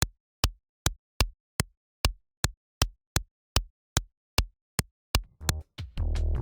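Synthesized barefoot footsteps made from a synth kick drum: a quick, even run of short soft thumps, about two and a half a second. About five seconds in, background music with a bass line comes in.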